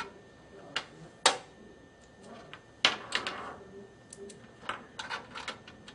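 Handling noise: a series of sharp clicks and knocks from cable and BNC connectors being handled on a work surface, the loudest about a second in and just before the halfway point, with a quicker cluster of lighter clicks near the end.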